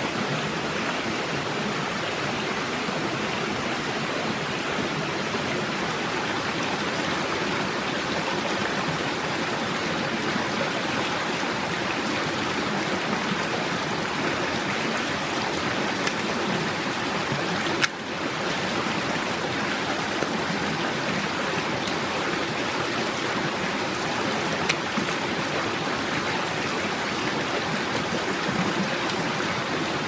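Shallow rocky forest stream running steadily. There is a single sharp click a little past halfway.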